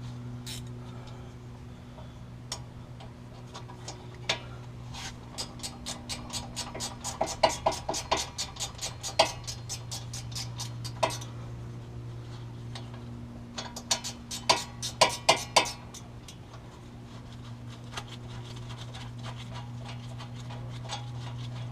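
Ratchet wrench clicking in two runs of quick, even ticks as a hub assembly mounting bolt is turned out, over a steady low hum.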